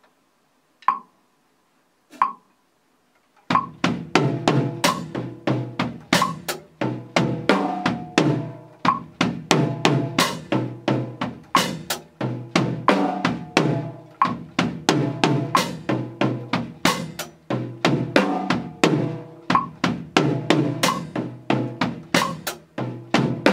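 A couple of drumstick clicks count in. About three and a half seconds in, an acoustic drum kit starts a fast linear groove of kick drum, tom-toms and snare.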